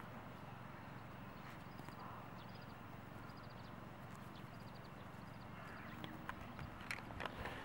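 Faint outdoor ambience: a steady low wind rumble with small runs of quick high chirping ticks. A few light clicks and taps come in near the end.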